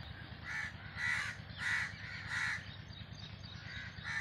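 A crow cawing: four caws a little over half a second apart, then another near the end.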